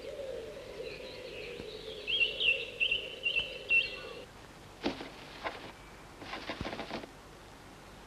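Chickadee giving high, twittering chirps for about four seconds, then rustling scratches twice near the end.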